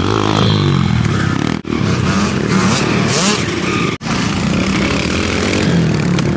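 Several small pit bike engines running and revving as the bikes ride around, pitch rising and falling. The sound breaks off abruptly twice, about a second and a half in and at four seconds, where the clips are spliced together.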